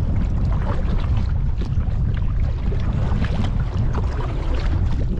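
Wind buffeting the microphone in a heavy, steady rumble, with choppy water slapping and splashing against a plastic kayak's hull.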